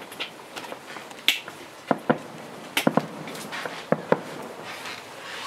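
Fireworks crackling: about nine sharp, irregular cracks, several in quick succession around the middle, over a faint hiss.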